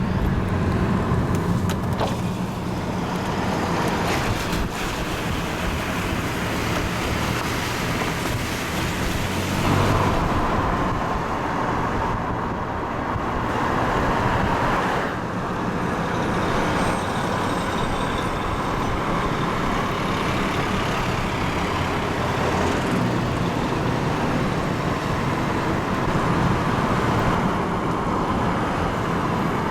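A car driving with steady engine and road noise.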